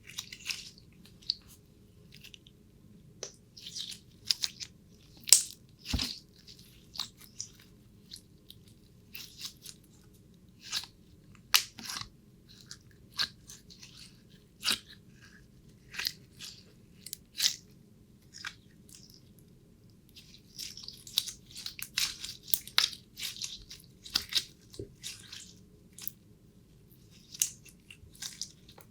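Irregular crisp crunching and crackling close to the microphone, with sharp snaps every second or so and a denser flurry near the end, over a faint steady low hum.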